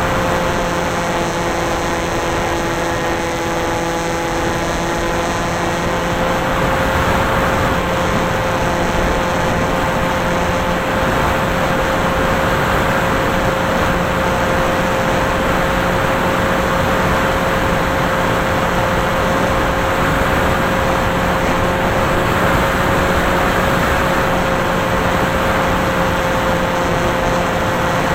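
FPV aircraft's motor and propeller running at a steady cruise, heard through the onboard camera as a constant hum over rushing air noise.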